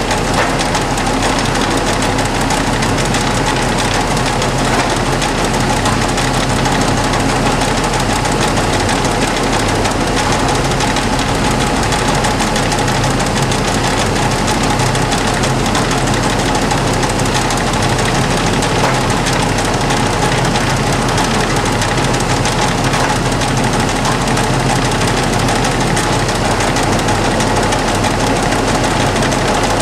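LeBlond 1610 Servo Shift heavy duty engine lathe running under power, its 20 HP motor drive and geared headstock making a loud, steady mechanical noise as the spindle is run through different speeds.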